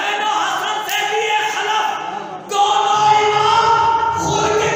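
A man singing verses in a melodic recitation style, holding long notes into a microphone and amplified over a public-address system. His voice gets louder about halfway through.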